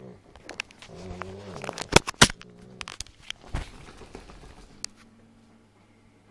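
Phone handling noise: rubbing and clicks with two sharp knocks about two seconds in, after a brief low moan near the start.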